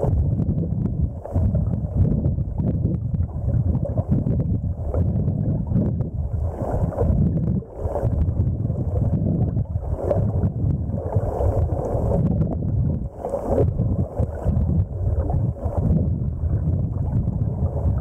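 Muffled underwater water noise: a steady low rush of water moving around a camera held just below the surface. Brief faint fizzes come every few seconds.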